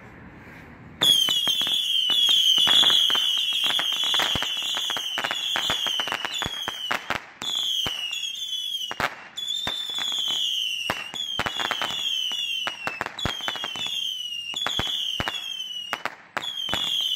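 A 100-shot Saturn missile battery firing in rapid succession: a dense stream of whistling missiles, each whistle falling in pitch, mixed with constant sharp pops as they burst. It starts about a second in and runs with only brief gaps.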